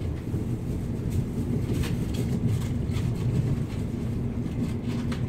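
Interior running noise of a Class 707 Desiro City electric multiple unit at speed: a steady low rumble of wheels on rail with a faint steady hum, and a few light clicks now and then.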